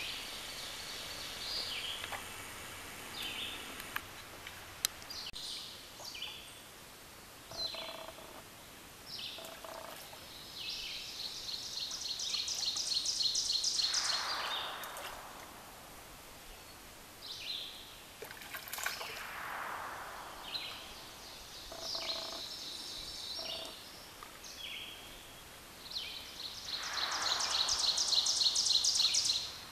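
Songbirds singing in woodland: short high chirps throughout, and three times a long, fast trill of high notes that grows louder over a few seconds, with a lower note sliding down beneath it.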